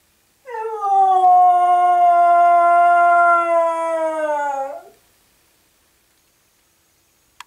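A dog howling: one long howl of about four seconds that slides down at its start, holds a steady pitch and drops off at the end, then a short click near the end. It is a separation howl, the dog upset at being left behind while the other dogs are out on a walk.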